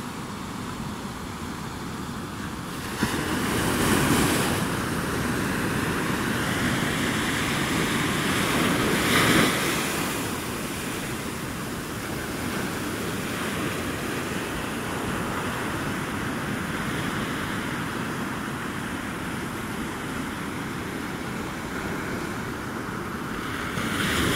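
Ocean surf breaking and washing up a sand beach, a steady rush of water that swells louder about three to four seconds in, again near ten seconds, and just before the end.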